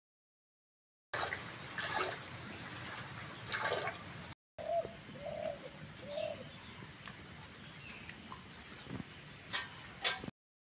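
A dove cooing three short notes about halfway through, over rural background noise with a few sharp knocks and rustles.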